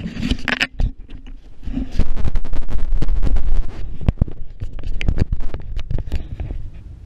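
Handling noise of a small action camera being picked up and repositioned: fingers rubbing and scraping over the camera and its mount, with many small knocks and a low rumble, loudest from about two to three and a half seconds in.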